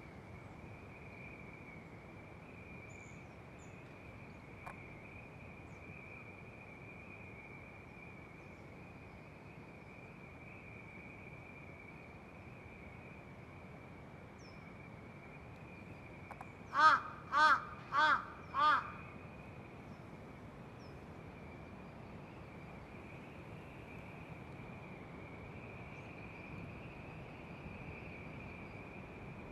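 Large-billed crow giving four caws in quick succession, evenly spaced over about two seconds, a little past the middle.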